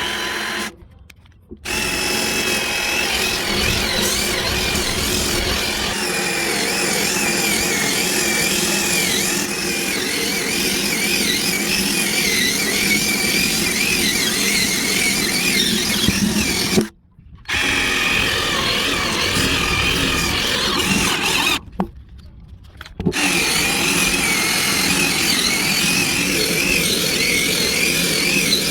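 Power drill running under load with a wavering, squealing whine. It cuts out briefly about a second in, again around two-thirds of the way through, and for about a second shortly after.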